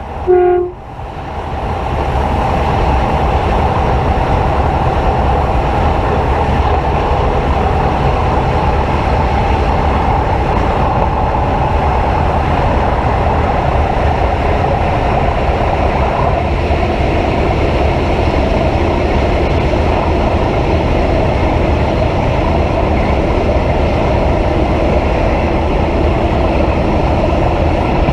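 A train horn gives a brief last note in the first second. Then comes the steady rumble and wheel-on-rail noise of a train running at speed along the track.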